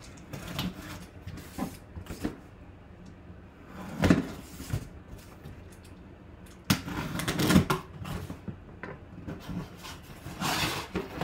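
A cardboard box being cut open: a knife slicing its packing tape, then the box turned and its flaps pulled open, with scrapes, rustles and a thump about four seconds in.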